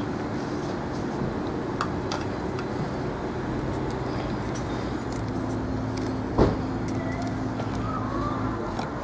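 Steady mechanical hum of a vehicle with a constant low drone, and one sharp knock about two-thirds of the way through.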